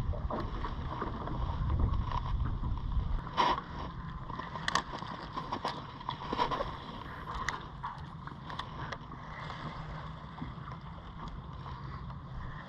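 Fishing from a jon boat while skipping a soft-plastic bait under docks: scattered sharp clicks and taps from rod, reel and lure handling over a low steady hum, which is louder in the first few seconds.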